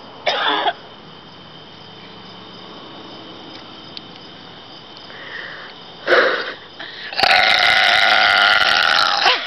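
A girl burping loudly: a short burp about six seconds in, then a long, drawn-out burp of about two seconds near the end.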